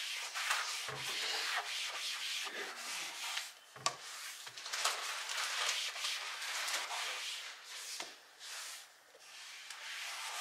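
A sponge damp with vinegar scrubbing back and forth across a kitchen cabinet shelf, in repeated rubbing strokes. Two light knocks come about a second and four seconds in.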